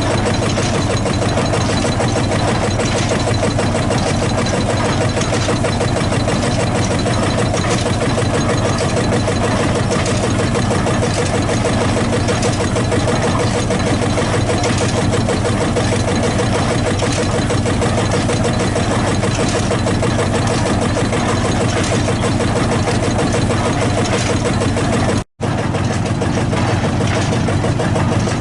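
Field-Marshall tractor's single-cylinder two-stroke diesel engine running steadily. The sound cuts out completely for a split second about 25 seconds in, then resumes unchanged.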